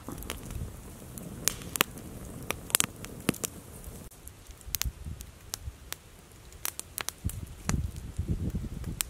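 Campfire crackling, with irregular sharp pops from the burning wood, over a low rumble of wind.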